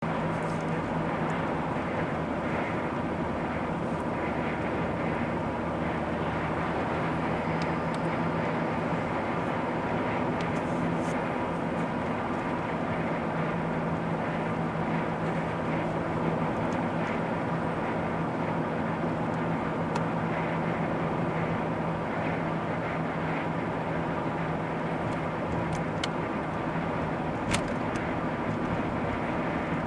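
Car cruising at steady speed on an open road: an even engine drone with a low hum and steady tyre noise. A single sharp click near the end.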